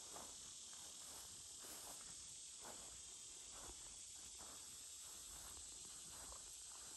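Faint footsteps on grass, about one step a second, over a steady high hiss of insects.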